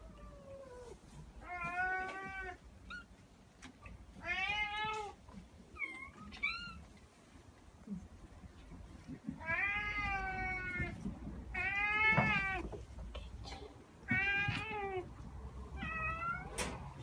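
Domestic cats meowing repeatedly, about seven meows spaced through the stretch, some drawn out and bending in pitch, with one shorter, higher call in between.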